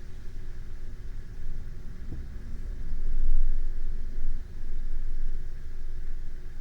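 A sleeping person's slow breathing right at a binaural microphone, the air on the mic coming through as a low rumble that swells to a peak about halfway through and dips briefly a second later. A faint steady hum lies underneath.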